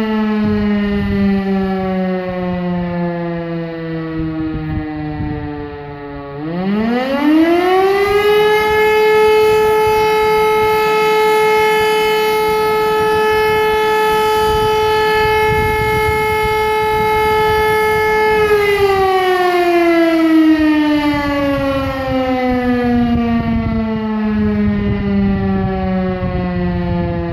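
Civil defence siren winding down. About six seconds in it spins back up to a high steady wail, holds it for about ten seconds, then slowly winds down again.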